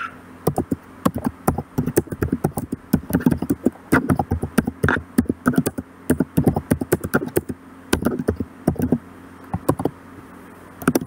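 Typing on a computer keyboard: a run of irregular key clicks, several a second, broken by short pauses and thinning out near the end.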